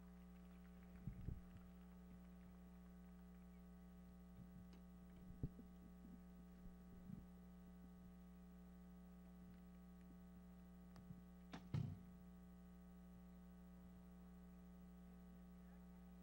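Near silence with a steady electrical mains hum, broken by a few faint knocks; the loudest comes about twelve seconds in.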